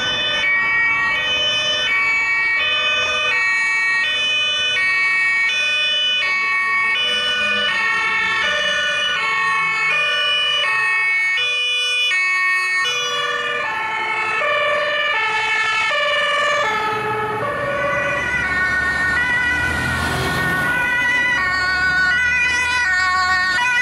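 German fire-engine two-tone sirens (Martinshorn): one siren alternating steadily between a high and a low note, joined past the middle by further sirens at other pitches that overlap it. Under them, the low engine rumble of a heavy fire truck swells as it passes near the end.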